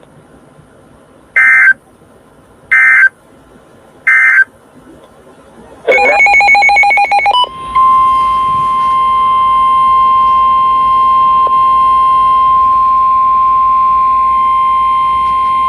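Emergency Alert System tones from a weather radio: three short, identical bursts of warbling digital data (the end-of-message code), then a brief harsh digital burst. After that comes the steady NOAA Weather Radio 1050 Hz warning alarm tone, held for about eight seconds, which announces the next warning.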